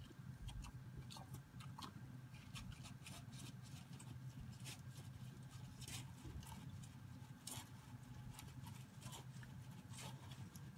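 Calf eating barley from a metal creep-feeder trough: faint, irregular crunching and clicking of grain being chewed and nosed against the metal.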